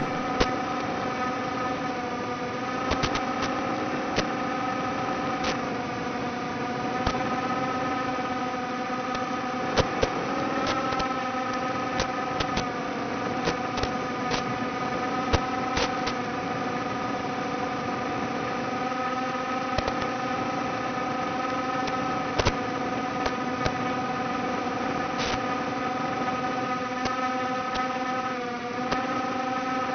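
Micro quadcopter's 1104 4000kv brushless motors and propellers whining steadily in flight, the pitch easing briefly around ten seconds in and again near the end, with scattered sharp clicks.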